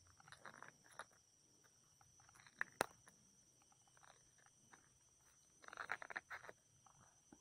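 Faint close-up handling of a soft rubber frog lure: fingers rustling on it and its snap clip and spinner blade clicking, with two sharp clicks about two and a half seconds in and a denser patch of rustling clicks about six seconds in.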